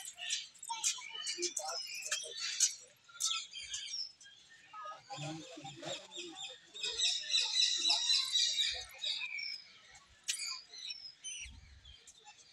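Many small birds chirping and twittering together in a zoo aviary, with a dense burst of rapid chatter a little past the middle. Faint voices of people are mixed in.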